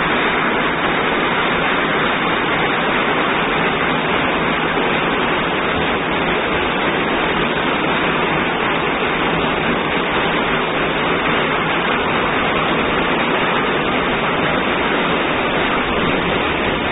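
Torrent of floodwater rushing over rocks and steps: a steady, loud roar of turbulent water.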